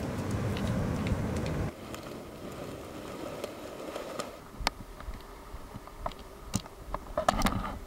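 Bare feet walking on a sandy wooden boardwalk: scattered soft thumps and clicks in the second half, bunching up near the end. Before that, a loud rushing rumble cuts off abruptly under two seconds in.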